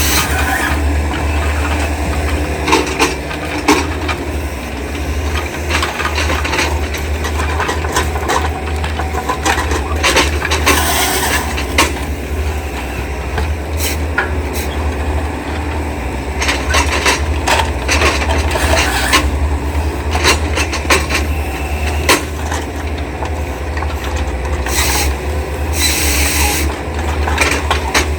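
Diesel engine of a Yanmar SV100-2A excavator running steadily while timber is handled: repeated knocks, clatter and scraping of wood. Two longer rasping scrapes come about ten seconds in and again near the end.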